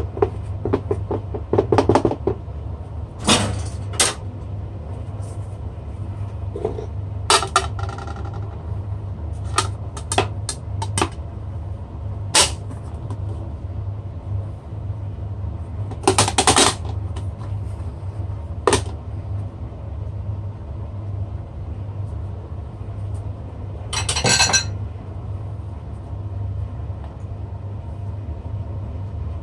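Silicone spatula scraping and tapping rice into a ceramic bowl, then ceramic clinks and knocks as a plate is laid over the bowl, the two are flipped and the bowl is lifted off. Scattered sharp knocks with a few longer clattering spells, over a steady low hum.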